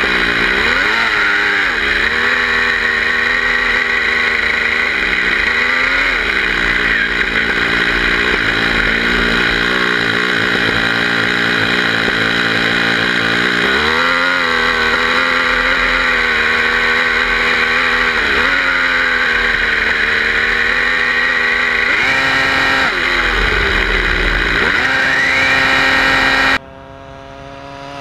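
O.S. FS-26 four-stroke glow engine of a 1/8-scale RC buggy, heard up close from the car itself, running hard with the revs rising and falling several times as the throttle is worked. Near the end the sound cuts off suddenly to a fainter, distant buzz of the same engine as the buggy approaches.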